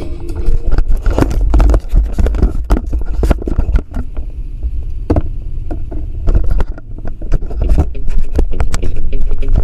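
Repeated knocks and scrapes of a dashcam being handled and set back on its mount, over the low rumble of the car on the road.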